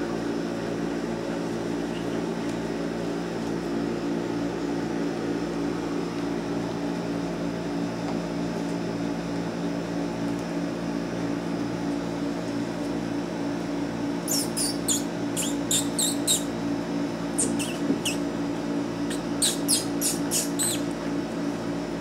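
Cockabichon puppies giving short, high-pitched squeaks while they play, in two quick runs in the second half, over a steady low hum.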